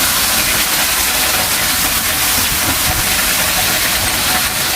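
Okra and meatballs, still wet from boiling water, sizzling steadily in hot oil in a frying pan.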